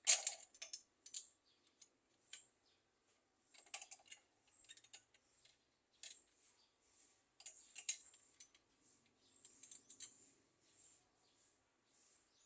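Irregular light clicks and taps of hard objects being handled, a loud cluster right at the start and smaller clusters later, with quiet gaps between.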